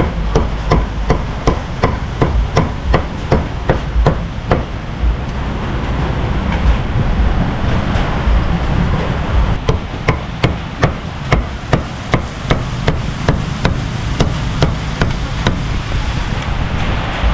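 Heavy meat cleaver chopping roast beef on a thick round wooden chopping block: quick, even strokes about two to three a second, breaking off for a few seconds midway and then starting again.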